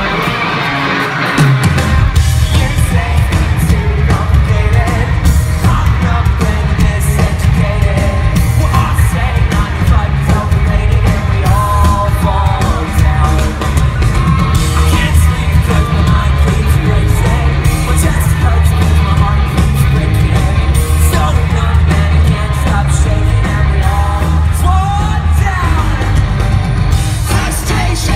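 Live rock band with electric guitars, bass and drums launching into an up-tempo pop-punk song, the full band with heavy drums and bass kicking in just under two seconds in, with sung vocals and a crowd yelling and singing along. Loud arena sound recorded from within the audience on a phone.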